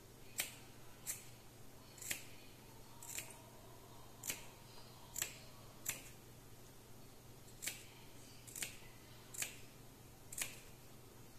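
Small sewing scissors snipping notches into the seam allowance of stitched fabric around its curves, so the seam can turn smoothly. There are eleven quiet, sharp snips, roughly one a second, with a short pause about halfway through.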